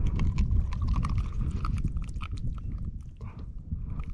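Hands unhooking a redfish: scattered small clicks and taps from the hook and lure being worked out of the fish's mouth, over a steady low rumble.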